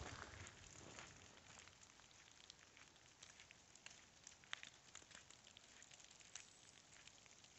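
Falling wet snow ticking faintly and irregularly on dry fallen leaves, over a quiet hiss, with a brief soft rush in the first second.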